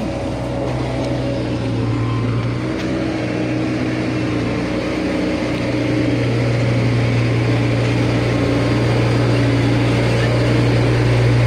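Road roller's diesel engine running steadily under load, with a deep, even hum that grows louder about halfway through.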